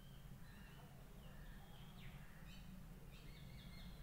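Faint, scattered high chirps of small birds over a low steady hum; no lighter click or firework is heard.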